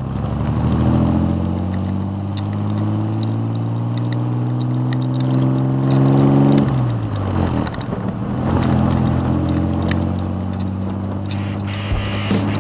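Classic pickup truck's engine pulling under way, its pitch climbing slowly as the truck gathers speed, then dropping back about seven seconds in and running on at an even pitch.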